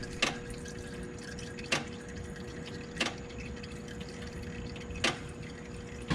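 Engine oil dripping from the Golf's open oil pan drain hole. There are four single drops, a second or two apart, over a faint steady hum. These are the last of the oil draining out after the car is let down flat.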